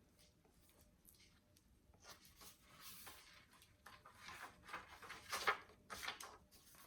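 Faint paper rustling and soft swishes of a book being handled and its pages turned, a few louder swishes in the second half.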